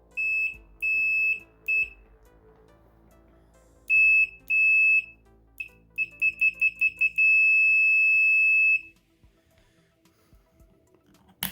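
Greenlee DM-820 multimeter's continuity beeper sounding on the ohm setting as the test leads touch: a high-pitched beep repeated in short beeps, then a quick run of very short beeps, then one long steady beep of about a second and a half. A sharp click comes at the very end.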